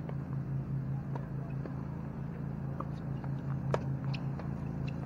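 A steady low pulsing hum, about four beats a second, under scattered light taps; the sharpest tap, about three-quarters of the way in, is a tennis ball struck lightly by a racket on the hard court.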